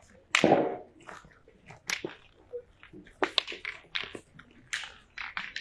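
Footsteps crunching on a gravel pétanque court in an irregular series, the loudest about half a second in.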